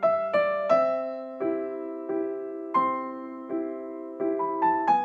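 Slow background piano music: single notes and soft chords struck one after another, each ringing and fading.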